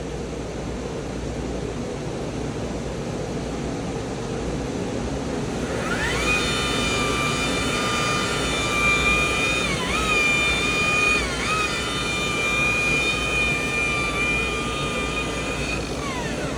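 Electric car buffer (paint polisher) spinning up with a rising whine about six seconds in, running steadily with its pitch dipping briefly twice as it is pressed into the paint, then winding down near the end. A steady background hum runs underneath.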